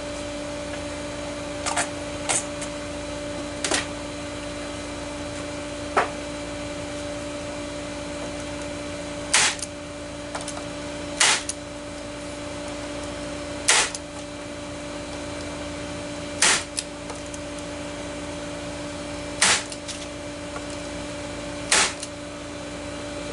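Brad nailer driving 5/8-inch brads into a glued crack in a wooden bench: about ten sharp shots, irregularly spaced one to three seconds apart.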